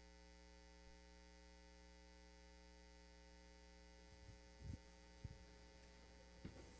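Near silence: a steady electrical mains hum, with a few faint knocks in the second half.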